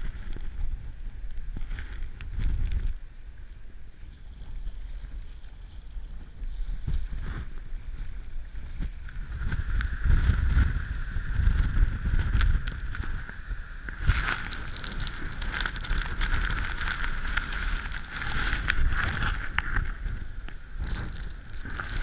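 Gale-force storm wind buffeting the camera's microphone in a heavy, uneven low rumble, over the rush of storm surf breaking on the beach. The sound changes abruptly a few seconds in and again about two-thirds of the way through, growing hissier the second time.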